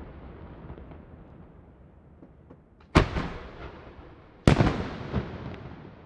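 Aerial fireworks: the rumbling echo of earlier bursts dies away, then two loud, sharp bangs come about a second and a half apart, each followed by a rolling echo and a few smaller cracks.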